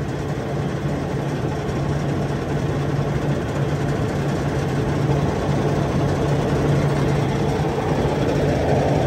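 Semi truck's diesel engine idling steadily, a low even hum.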